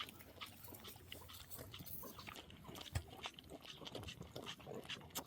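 Miniature calf suckling from a milk bottle: a run of faint, irregular smacking and sucking noises.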